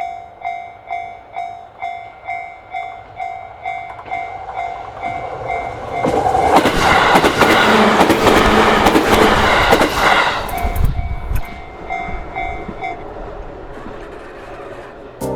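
Japanese level-crossing bell ringing its 'kan-kan' warning about twice a second. A JR Nikko Line train then passes the crossing for about four seconds, loud enough to drown out the bell. The bell is heard again briefly after the train and stops a couple of seconds before the end.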